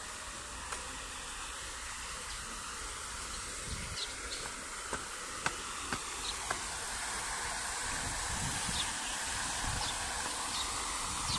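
Water of a small rock cascade running and splashing, a steady hiss that grows slightly louder. A few short clicks come around the middle.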